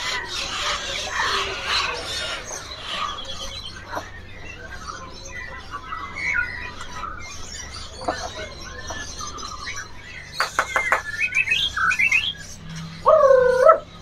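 Many caged songbirds chirping and whistling together, with quick rising whistles and then a loud, arching call repeated near the end.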